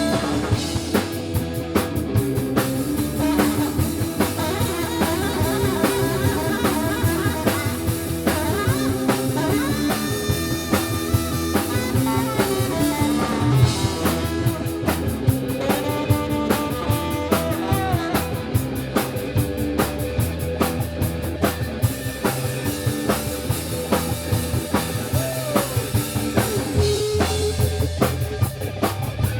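Live space-rock band playing an instrumental break with no vocals: drum kit keeping a steady beat under bass, electric guitar and lead lines that slide in pitch.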